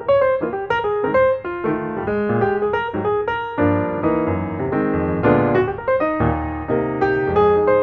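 Background piano music: a quick run of notes, with fuller chords from about halfway through.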